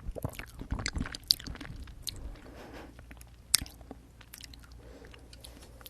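Close-miked chewing of jelly straw candy: quick wet smacks and squishy bites, busiest in the first two seconds, with two sharp clicks, then thinning to softer mouth sounds.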